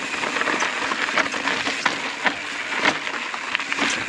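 Mountain bike rolling down a loose, rocky trail: a steady gritty crunch of tyres on dirt and stones, with several sharp knocks and rattles as the wheels hit rocks and drops.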